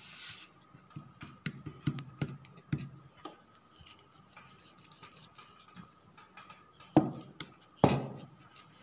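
Wooden rolling pin rolling out momo dough on a chapati board: a brief rubbing at the start, then scattered light clicks and knocks as the pin moves, with two louder thumps about a second apart near the end.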